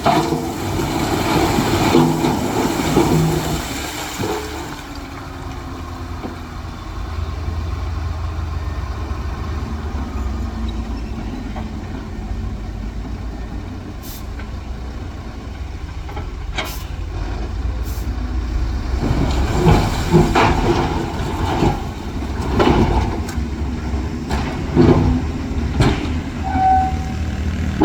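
Heavy diesel earthmoving machinery running with a steady low rumble. In the second half come repeated sharp clanks and knocks.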